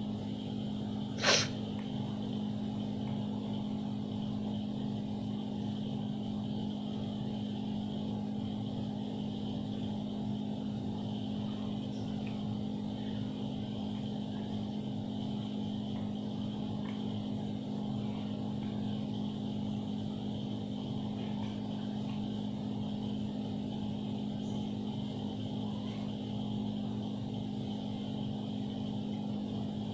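A steady mechanical hum with a constant low pitch and a fainter high whine, broken once by a sharp click about a second in.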